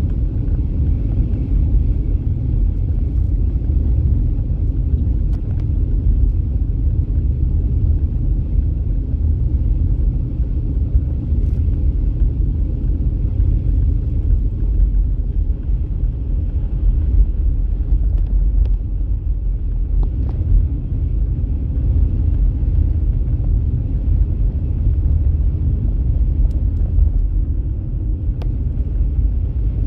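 Steady low rumble of a car driving at about 80 km/h, engine and tyre noise heard from inside the cabin, with a few faint clicks.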